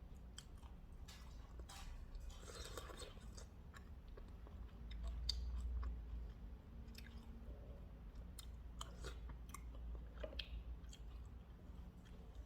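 A person chewing food close to the microphone, with scattered small clicks and a soft low rumble about five seconds in.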